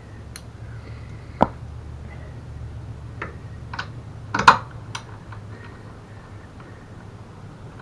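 Scattered sharp clicks and knocks of hand tools and parts being handled, the loudest about four and a half seconds in, over a steady low hum.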